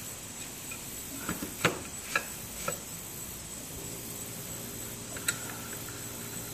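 Metal bar clamp clicking and knocking as it is set against a wooden board and its screw handle is turned tight: four sharp clicks in the first three seconds, one more near the end.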